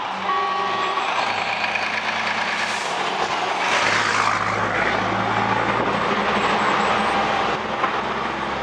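Volvo truck engine with an open exhaust pipe running loudly, with a burst of hissing about four seconds in.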